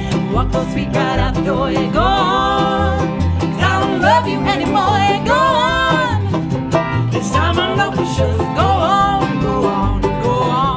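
Bluegrass band playing live, with mandolin, fiddle, banjo, upright bass and acoustic guitar under a woman singing lead.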